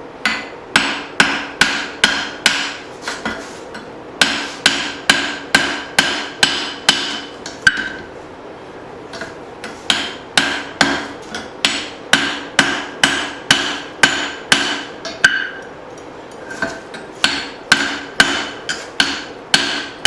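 Hand hammer striking a hot leaf-spring steel hatchet head on an anvil, in four runs of ringing blows at about two a second with short pauses between them, as the head is straightened after drifting the eye.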